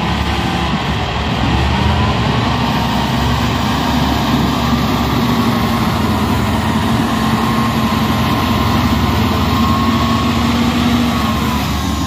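Caterpillar 140H motor grader's diesel engine running steadily under load while it pushes and spreads dirt with its blade. A steady whine sits above the engine note.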